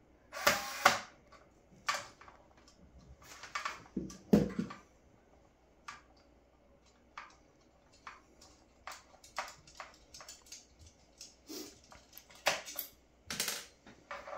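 Irregular clicks, knocks and scrapes of hands and a screwdriver working a chrome light-switch faceplate loose from its wall box, with a low thud about four seconds in and a louder scrape near the end.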